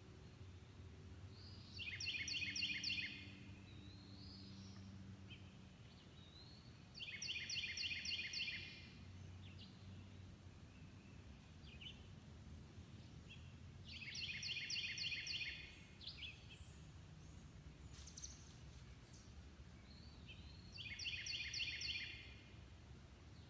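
A songbird singing the same short, high trilled phrase four times, about every six to seven seconds, over a faint low background hum.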